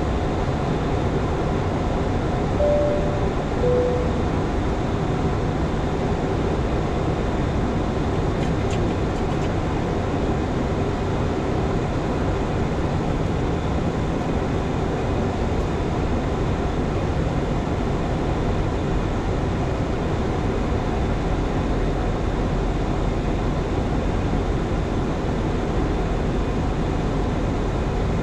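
Steady rush of airflow and engine noise on the flight deck of a Boeing 737-800 on approach. Two short tones sound about a second apart a few seconds in, the second one lower.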